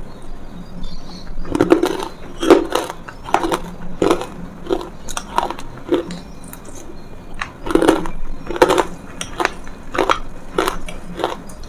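A person biting and crunching something hard and brittle, in a run of sharp, irregular crunches about one or two a second.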